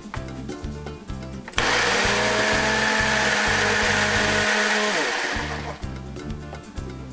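Personal cup blender motor running hard, pureeing roasted tomatillos, serrano peppers, garlic and water into salsa. It starts abruptly about a second and a half in, runs steadily for about three seconds, then winds down with a falling pitch. Background music with a steady beat plays throughout.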